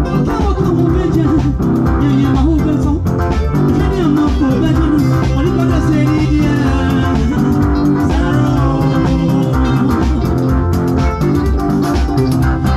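Loud music playing, with guitar and bass over a steady beat.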